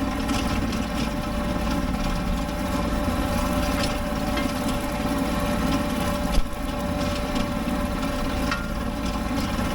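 Kubota B7500 compact tractor's three-cylinder diesel engine running steadily while it drives a 5-foot rotary tiller. A single sharp knock comes about six and a half seconds in.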